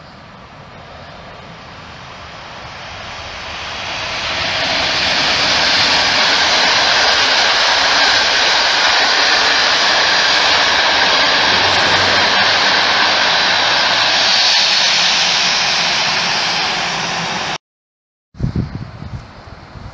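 Passenger train of long-distance coaches passing close by at speed: a rush of wheels on rail that swells over the first few seconds, holds steady and loud, then cuts off suddenly near the end.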